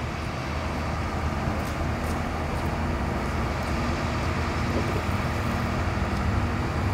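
Steady low engine drone of a construction crane running as it hoists a load.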